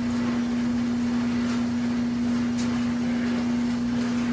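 A small motor or fan humming steadily over a constant rushing noise, with a couple of faint clicks.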